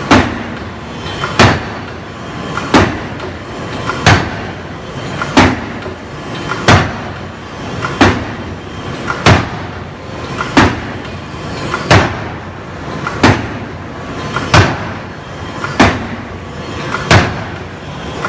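Hydraulic open-die forging hammer striking a red-hot steel flange, a sharp metallic blow with a short ring about every 1.3 seconds, in an even rhythm.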